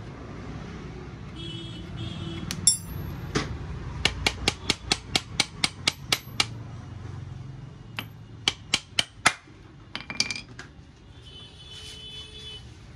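Hammer blows on the motorcycle's rear axle to drive it out of the wheel. A quick run of about a dozen sharp metal strikes, about four a second, then after a pause about five more and a couple of lighter taps.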